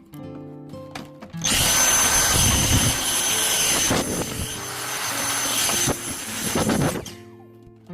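A small motor running with a loud rush of air and a steady high whine. It starts about a second and a half in and cuts off suddenly about seven seconds in, over soft acoustic guitar music.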